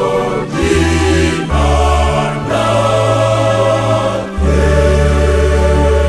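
Church choir singing in Swahili with a strong bass line, chords changing about once a second, then settling into one long held final chord.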